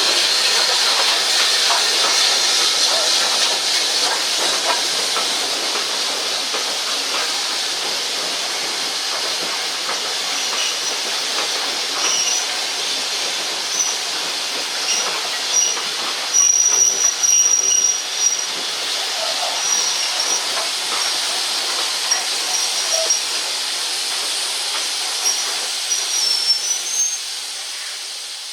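Steam locomotive hissing steadily, loudest at first. From about a third of the way in come intermittent thin, high-pitched squeals, strongest just past halfway. The sound fades away at the very end.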